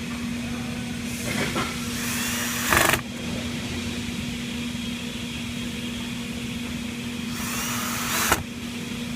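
Power drill driving two screws into plastic inserts: two bursts, one starting about a second in and lasting a second and a half, the other near the end lasting about a second. A steady low hum runs underneath.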